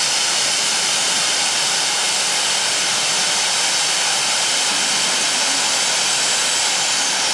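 Fan-shaped stage pyrotechnic fountain burning, its three jets of sparks spraying out with a steady hiss.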